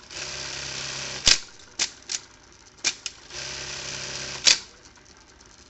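Juki 1850 industrial bartacking sewing machine running two short stitching cycles of about a second each, each ending in a loud sharp clack, with a few lighter clicks between the cycles.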